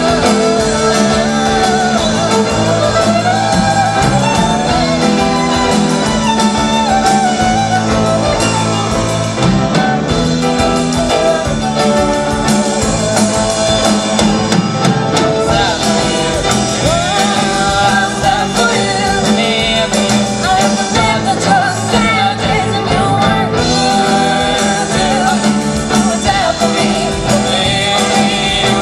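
Live pop-rock band playing at full volume: guitars, bass and drums under a wavering lead melody, with singing.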